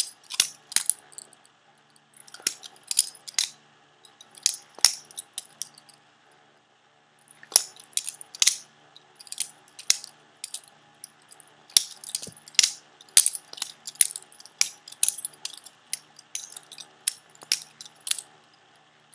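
Butterfly knife (balisong) being flipped open and closed over and over: its metal handles clack and click against each other in quick clusters, with a short pause about six seconds in.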